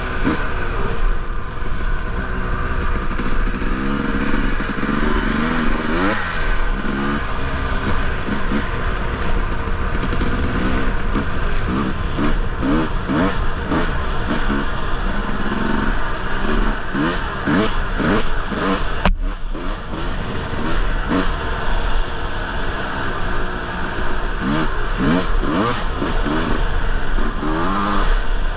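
Honda CR250R dirt bike's 250cc two-stroke single-cylinder engine being ridden along a dirt trail, revving up and down over and over as the throttle is worked and gears change, its pitch repeatedly rising and falling.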